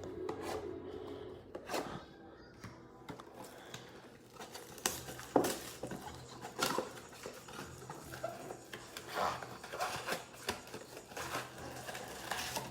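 Crinkling, rustling and tearing of plastic wrap and cardboard as a box of trading card packs is opened by hand, in irregular bursts with a sharper crackle about five seconds in.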